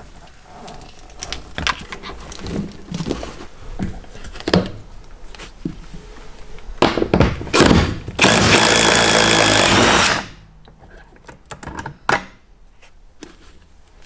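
Handling noises and knocks as parts are moved. Then a cordless power tool with a socket runs loudly for about two seconds on a seat-rail bolt, undoing it, and cuts off sharply, followed by a few clicks and a knock.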